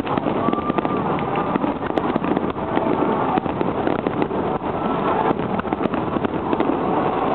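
Dense, continuous barrage of aerial firework shells bursting: many booms and crackles overlapping, with no pause.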